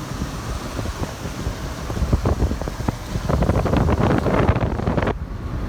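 Wind buffeting the microphone: a steady low rumble, with louder crackling gusts from about two seconds in that break off sharply near the end.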